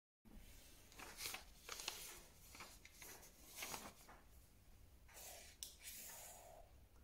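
Faint scratching of a pen drawing on a sheet of paper taped to a wall, in several short strokes with pauses between them.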